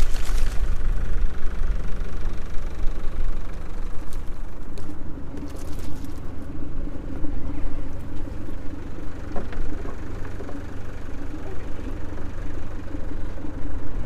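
A boat's outboard motor idling with a steady low rumble, with a few brief knocks over it in the middle.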